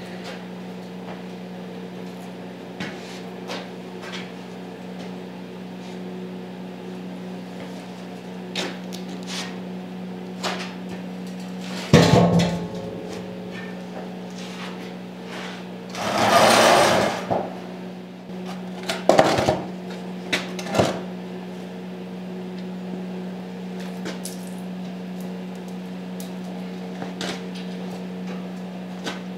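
A steady machine hum runs throughout. Over it, the heavy steel press base and anvil plate are shifted and set down, with a loud metal clank about twelve seconds in, a short hissing burst a few seconds later, and a few lighter knocks soon after.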